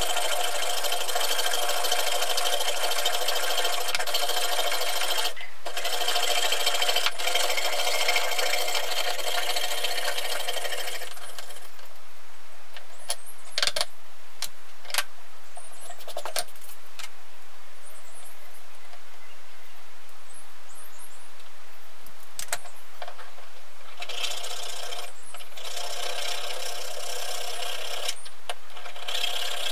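A fine-bladed hand frame saw cutting a metal plate in rapid, sped-up strokes. The sawing stops about 11 seconds in, and a quieter stretch with a few clicks and taps follows as the cut plate is handled. About 24 seconds in, a hand file starts rasping across the metal edge.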